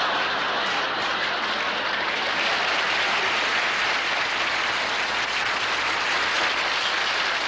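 Television studio audience applauding steadily after a punchline: a dense, even clatter of many hands clapping.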